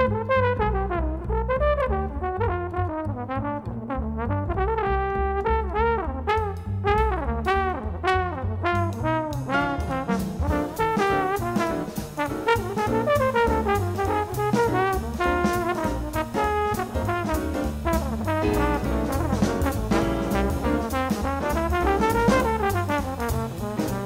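Jazz trombone improvising a solo in running eighth-note lines over piano, acoustic bass and drums. The drums' cymbals grow brighter and busier from about ten seconds in.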